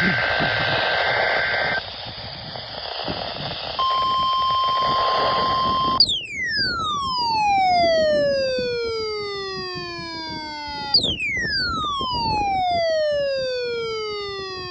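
NOAA Weather Radio test signals received on a portable radio, over hiss. A short two-tone warbling data burst comes first, the SAME header of an Emergency Alert System test. A few seconds later the steady 1050 Hz warning alarm tone sounds for about two seconds. Then come two long falling sweeps, each gliding from high to low over about five seconds, like a siren winding down.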